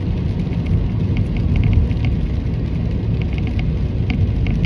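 Steady rumble of road and engine noise inside a moving car's cabin, with faint scattered ticks over it.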